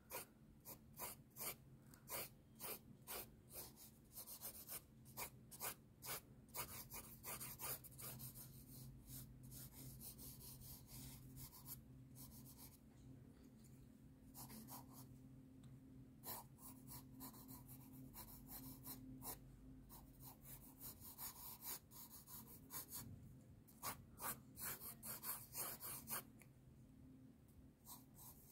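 Faint scratching of a pencil on sketchbook paper: quick repeated strokes, about two or three a second, at the start and again near the end, with softer, steadier scratching in between.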